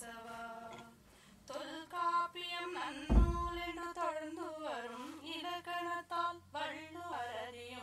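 Recorded prayer song played back: a voice singing a slow melody of long held notes that glide between pitches. A single low thump sounds about three seconds in.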